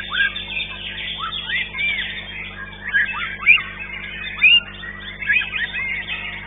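Caged songbirds at a singing contest, with a white-rumped shama (murai batu) among them: a dense chorus of overlapping quick chirps and arched whistled notes that rise and fall, with no pause.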